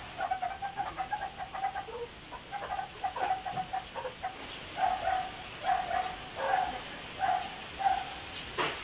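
A dog barking repeatedly in the distance, short barks of even pitch about one every 0.8 seconds in the second half.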